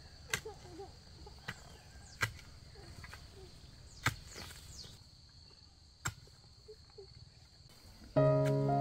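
About five sharp, irregular knocks, a second or two apart, over a steady high insect drone. Music comes in near the end.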